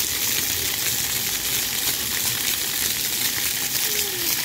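Ground-level water jets of a splash pad spraying and splashing onto wet concrete, a steady hiss.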